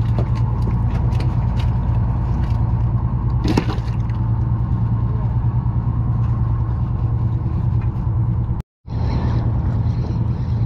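Charter boat's engine running with a steady low hum, with scattered clicks and knocks of gear being handled on deck. The sound cuts out for a moment near the end.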